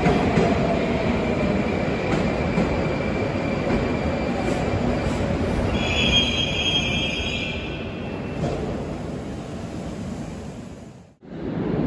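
A Moscow Metro 81-760/761 'Oka' train running into the platform and braking to a stop, its rumble and a falling whine dying down. A short high squeal comes about six seconds in as it halts. The sound then fades and cuts off abruptly near the end.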